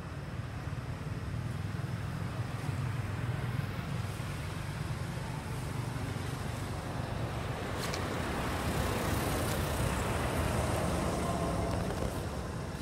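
Road traffic: a steady low rumble, with a vehicle passing that grows louder in the second half and fades near the end.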